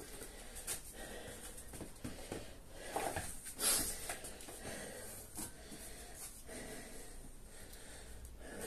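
A man breathing hard from exertion during kettlebell swings, with a few sharp breaths out, the strongest a little past the middle.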